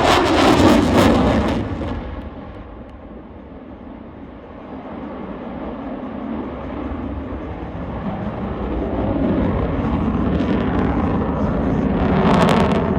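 F-35B's Pratt & Whitney F135 jet engine flying past loud with a falling pitch, fading to a low distant rumble. Then it grows steadily louder again as the jet comes back, peaking just before the end.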